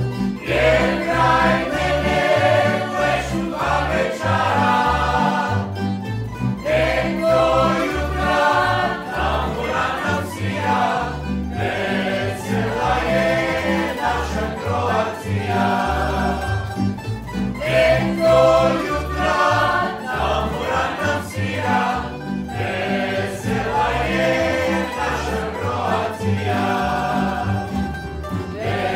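A group of voices singing a Croatian folk song over a tamburica ensemble, with a bass line stepping along beneath the voices.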